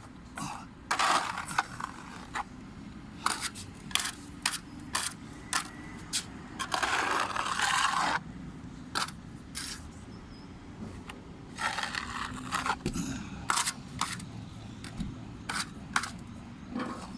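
A hand tool scraping and tapping on a hard surface: many sharp clicks, and three longer scrapes of about a second each, about a second in, around the middle and about twelve seconds in.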